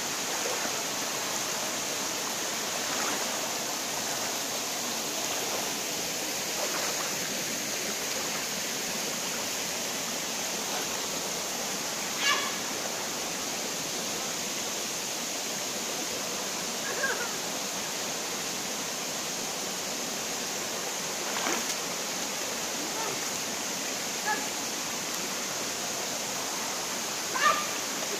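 Steady rushing of a shallow forest stream running over small cascades, with a handful of brief sharp sounds scattered through.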